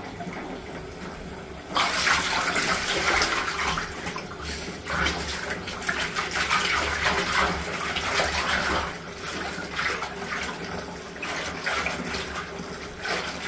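Bath tap running into a filling bathtub. From about two seconds in, a hand swishes and splashes through the water, stirring in a dissolving bath bomb, and the sound gets louder and more uneven.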